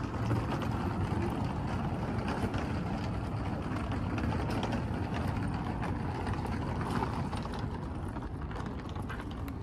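Wind buffeting the microphone: a steady low rushing noise with no voices.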